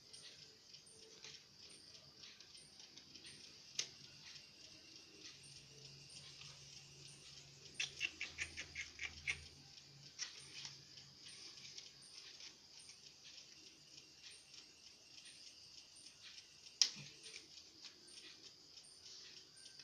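Faint clicks, taps and scratches of small laptop parts being handled during disassembly, with a quick run of about eight clicks around the middle and single sharp clicks near 4 and 17 seconds, over a faint steady hiss.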